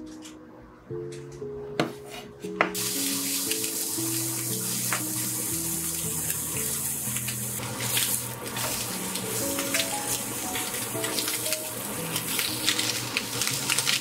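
Slices of Spam sizzling as they fry in a pan, a steady hiss that starts about three seconds in. A few knife taps on a wooden cutting board come just before it. Background music plays throughout.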